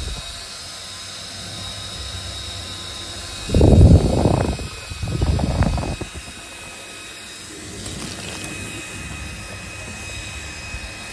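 Steady whirring background noise of an electronics shop with a faint high whine. It is broken a few seconds in by two short, loud low rumbles.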